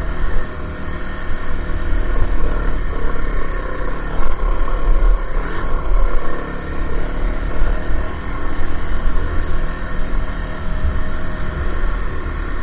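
A 500 cc dirt bike's engine running under load and revving up and down as the bike is ridden over rough dirt trail, heard from a camera mounted on the bike, with a strong low rumble throughout.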